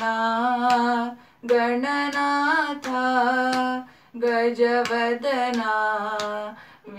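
A boy singing a devotional song to Ganesha solo, drawing out long sustained notes with small ornamental bends. He sings three long phrases with short breaths between them.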